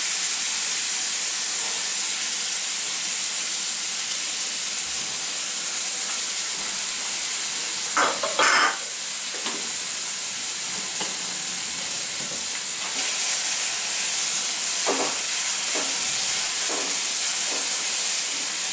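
Chopped onion sizzling in hot oil in a kadhai, a steady frying hiss. It is stirred a few times, with a louder scraping stir about eight seconds in.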